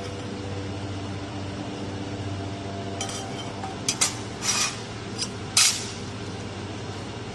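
Handheld fiber laser welding machine humming steadily, with five or six short, sharp hissing bursts in the middle that are the loudest sounds.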